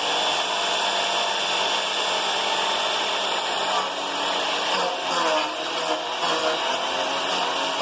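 Homemade chipper/shredder driven by a 9-inch angle grinder, its motor running with a steady high whine and hiss; the pitch wavers and dips a few times in the second half.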